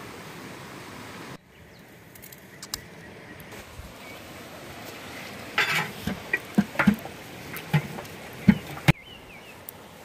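A run of sharp knocks and clatters, about seven in three seconds, as plates of idiyappam are stacked into a large metal steaming pot, over the steady sound of a stream.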